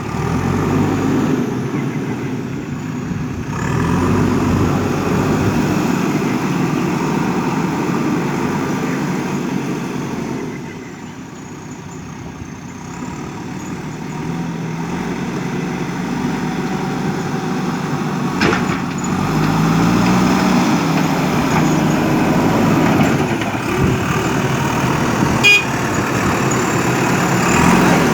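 JCB backhoe loader's diesel engine running under work, its speed rising and falling as the machine works, easing off briefly before picking up again. Two short sharp knocks stand out partway through.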